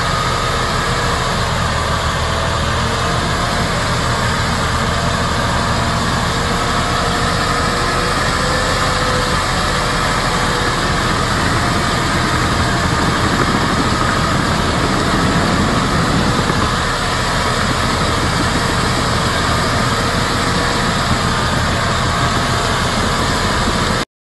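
Diesel engine of a MAN crane truck running steadily as the truck pushes through deep mud, a little louder around the middle. The sound cuts off suddenly near the end.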